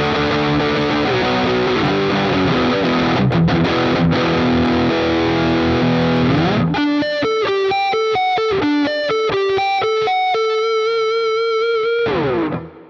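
Cort CR50 electric guitar played through heavy distortion: dense chords and riffs first, then about halfway through a single-note lead line, with a long note held with vibrato near the end. It finishes with a brief noisy burst and stops.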